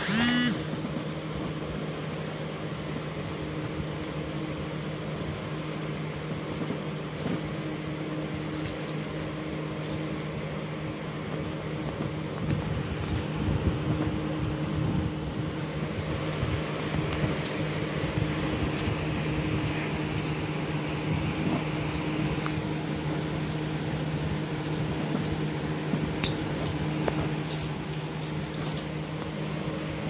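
Steady low hum throughout, with scattered light metallic clicks and clinks of steel handcuffs being handled, several close together near the end.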